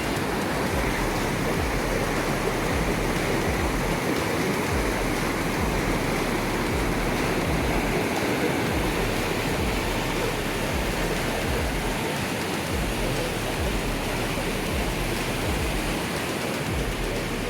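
Steady rush of falling water, an even roar with a low rumble underneath.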